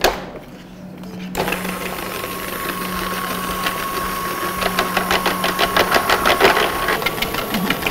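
Electric stand mixer switched on about a second in. Its motor runs steadily with a constant whine and a fast rhythmic rattle of the beaters as they beat vegetable oil and sugar together to dissolve the sugar.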